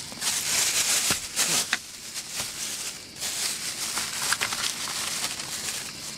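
Crinkling and rustling of plastic packaging being handled, an irregular run of small crackles and clicks.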